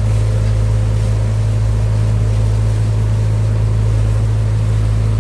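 JCB 3DX 49 hp backhoe loader's diesel engine running steadily, a constant low hum with no change in speed.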